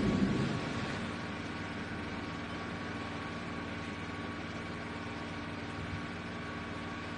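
Steady engine hum holding several fixed tones, with a brief louder low rumble swelling right at the start.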